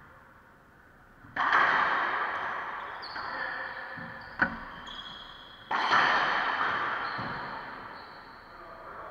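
Racquetball being hit during a rally: two loud cracks about four seconds apart, each ringing out in the court's long echo off the walls, with a short sharp smack between them.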